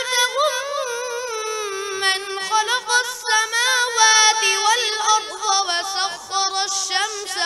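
A boy reciting the Quran in a melodic tajweed chant, his high child's voice holding long notes and sliding through ornamented turns between them.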